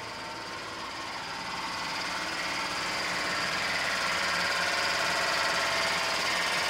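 A freshly rebuilt Suzuki F6A 660cc three-cylinder, 12-valve carbureted engine running steadily with an even, fast mechanical chatter. It grows louder a couple of seconds in.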